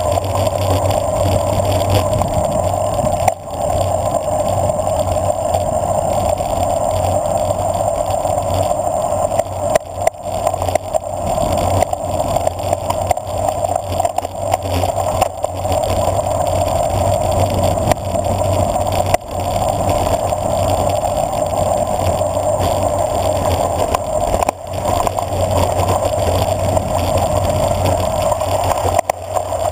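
Bicycle rolling fast downhill on a gravel road: a steady, loud rush of tyre and wind noise with a constant rattle, dipping briefly a few times.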